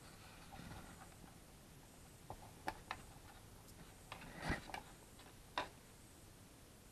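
Quiet handling noise: about half a dozen faint, scattered clicks and taps of small plastic parts as a small battery and its lead are fitted to a Syma X8C quadcopter. The loudest tap comes about four and a half seconds in.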